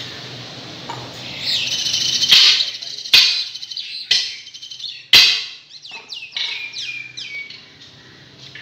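Steel tyre lever clanking against the rim of an Isuzu NPR lorry wheel as the tyre is prised off, four sharp knocks in the middle, the second and fourth the loudest. Runs of short, high falling chirps sound around them, the longest run near the end.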